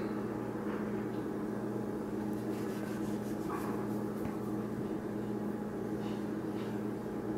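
A steady low hum made of several fixed tones, with a few faint soft rustles as a hand strokes a dog's fur.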